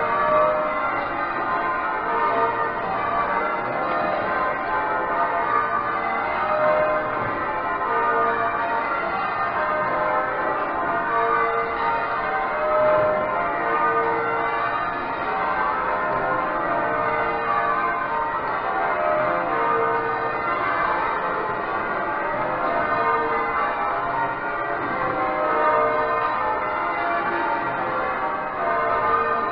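Change ringing on the twelve bells of Exeter Cathedral, a heavy ring with a tenor of about 72 cwt: bells struck one after another in a steady, unbroken stream.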